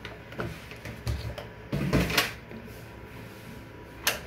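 A plastic storage basket of grocery packets being handled at a kitchen cupboard: a few light knocks, a longer scraping, rustling stretch about two seconds in, and a sharp click near the end.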